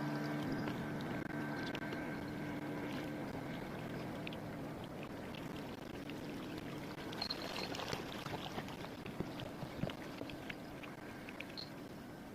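A motor's steady hum fades away over the first few seconds, most likely a boat's. Running water on the river follows, with scattered small clicks and knocks from handling on the boat.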